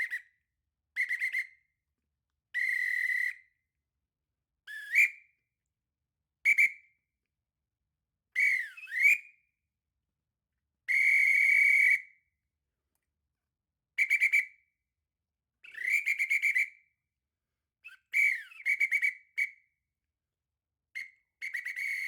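A series of about a dozen referee whistle blasts of different kinds, with silence between them: short trilled blasts, steady blasts (the longest about a second long near the middle), and blasts that slide down and back up in pitch.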